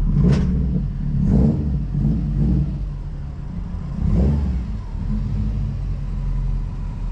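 2010 Subaru WRX's turbocharged flat-four engine running with three short revs, at the start, about a second and a half in, and about four seconds in. The car won't drive off: it keeps popping out of gear, and the owner suspects a fried transmission rather than just a bad clutch.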